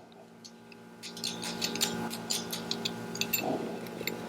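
Small metal clicks and scrapes as the adjustable third-brush mount of a Model T generator is worked back and forth, the way the generator's charging rate (amp draw) is set. A steady hum runs underneath.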